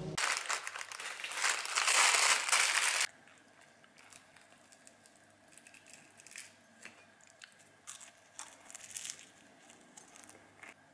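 A loud rustling hiss for about the first three seconds that cuts off suddenly, then a flaky butter croissant being torn apart by hand over a plate, its crust crackling and crunching in scattered small crackles.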